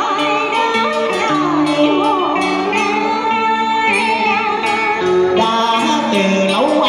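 A woman singing a Vietnamese cải lương excerpt with a wavering vibrato, accompanied by electric guitar.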